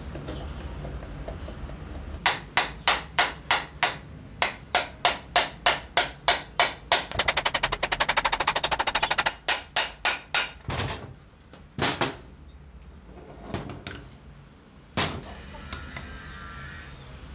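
A run of sharp knocks, about two to three a second, then a quick rattle of rapid taps and a few single knocks, as the old Makita groove cutter's motor housing is struck to work its armature loose.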